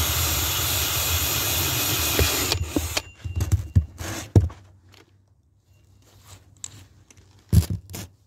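Cordless drill running as its bit bores through the thin wall of a plastic storage box, stopping about two and a half seconds in. Then the plastic box is handled and set down on a table, with scattered clatters and knocks, the sharpest near the end.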